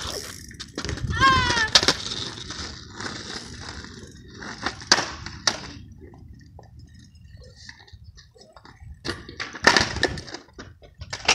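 Skateboard clacking on rough asphalt, with a sharp clack about five seconds in and a couple more near the end, and faint rolling between them. A child's voice calls out briefly near the start.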